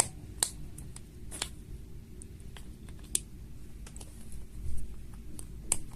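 Scattered sharp clicks and taps of hard plastic being handled, about six spread unevenly: parts of a plastic display box being fitted together.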